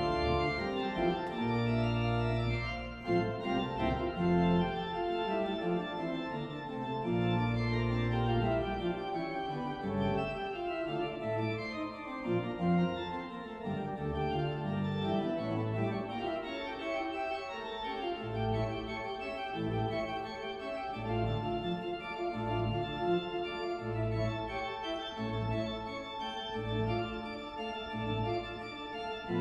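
Church organ playing sustained chords, with a steady pulse of repeated bass notes in the second half.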